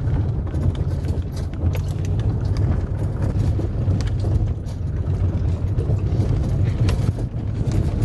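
Vehicle driving slowly on a gravel track, heard from inside the cabin: a steady low engine and tyre rumble, with scattered small clicks and crackles from stones under the tyres.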